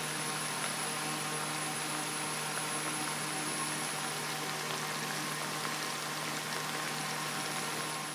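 Squid cooking in squid-ink adobo sauce in a frying pan: a steady simmering, sizzling hiss, with a low steady hum underneath.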